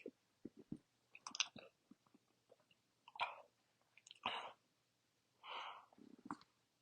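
Soft mouth and breathing sounds close to the microphone: a few faint clicks in the first second, then five short, faint breathy puffs over the next few seconds.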